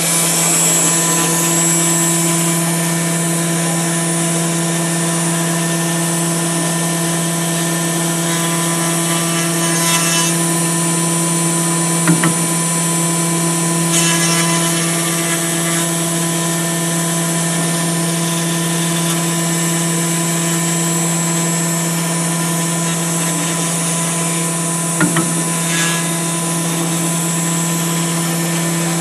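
A 4-axis CNC router's spindle runs steadily while a long, thin bit carves a foam sculpture: a steady whine with a hiss of cutting. The cutting noise swells briefly a few times, and a short click comes about twelve seconds in and again about twenty-five seconds in.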